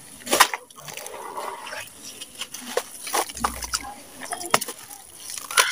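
A wet, gritty cement-and-sand lump squeezed and crumbled by hand in a tub of water: squelching and crackling of grit with a run of short wet crunches and small splashes, a few of them louder.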